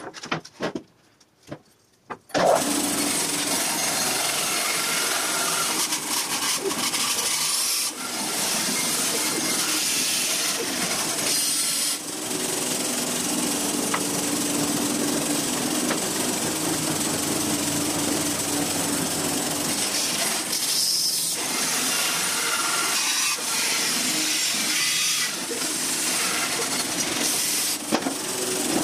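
Grizzly G0513X2 bandsaw resawing a wet black walnut log, the blade cutting with a steady loud noise and a faint hum under it. It starts abruptly about two seconds in, after a few light knocks of the log being handled.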